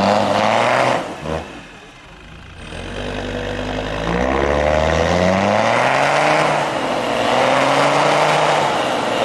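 Land Rover Discovery TD5's five-cylinder turbodiesel revving hard under load while its mud tyres spin through deep snow. The revs drop off about a second in, then climb again and stay high.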